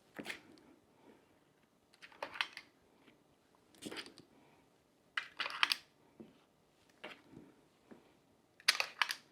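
Short clicks and scrapes of a utensil against a bowl or pan as cupcake batter is portioned out, coming as about five brief bursts a second or two apart.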